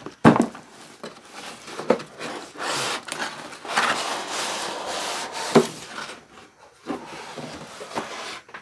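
Cardboard router box being opened by hand: the inner box sliding out of its sleeve with rubbing and scraping of cardboard, and a few sharp knocks.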